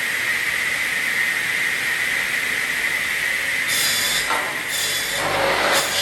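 Carousel pallet-block saw running, its circular saw blade giving a steady whine. Three short, harsher bursts come in the second half as blocks are cut off the upright beams.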